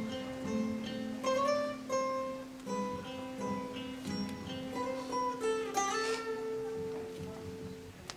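Acoustic guitar picking the instrumental introduction to a song: single plucked notes over a steady low ringing note, settling on a longer held note near the end.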